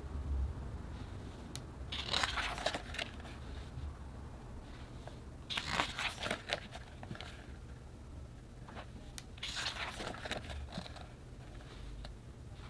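Packaging crinkling and rustling as it is handled, in three short bursts: about two seconds in, about six seconds in, and about ten seconds in.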